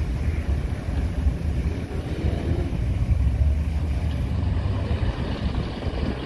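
Engine of a lifted off-road 4x4 SUV running at low speed as it rolls slowly across a gravel floor: a steady low rumble.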